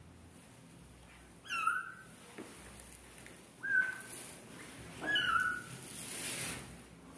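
A young kitten mewing three times: short, high-pitched mews, the first and last sliding down slightly in pitch. A soft rustle follows near the end.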